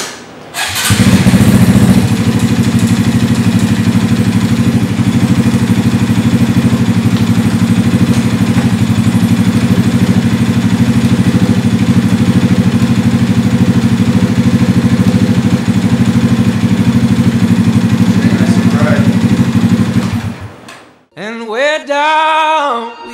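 Honda Grom's 125 cc single-cylinder four-stroke engine running at a steady idle. It cuts in sharply about a second in and dies away near the end, where music with singing takes over.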